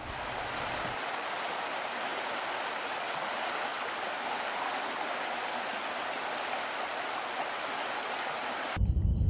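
Steady, even rush of water like a flowing stream, with no deep rumble, cutting off abruptly near the end.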